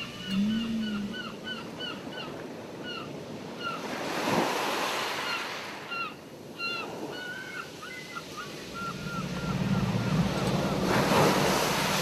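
Ocean surf washing in twice, swelling and fading, with a gull giving a quick series of short repeated cries through the first half. A low steady tone comes in near the end.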